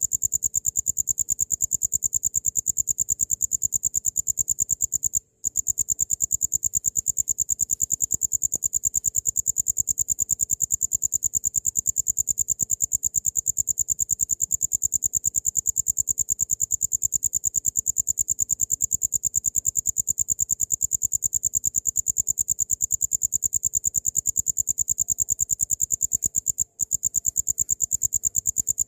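Cricket (jangkrik) chirping in a continuous, rapid, high-pitched pulsing trill. It breaks off twice for a split second, once about five seconds in and once near the end.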